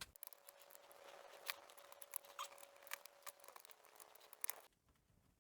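Faint irregular clicks and taps of small plastic and metal parts being handled inside an opened laptop, over a faint steady hum that drops a little in pitch near the end.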